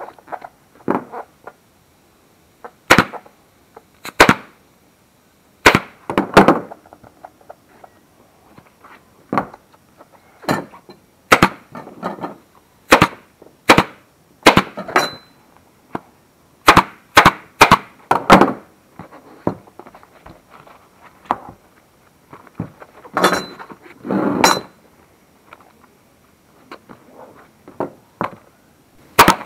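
Pneumatic upholstery staple gun driving 8 mm staples through vinyl into a dirt bike's plastic seat base. About fifteen sharp shots come at uneven spacing, some in quick runs, with softer handling noise between them.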